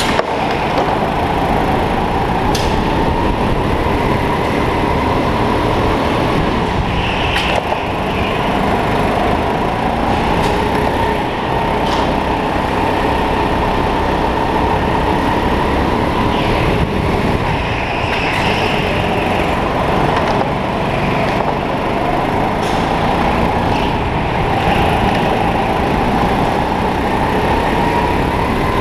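Go-kart engine running at racing speed, heard from the onboard camera, its pitch rising and falling every few seconds with the throttle through the corners, over a constant low rumble, with a few sharp knocks along the way.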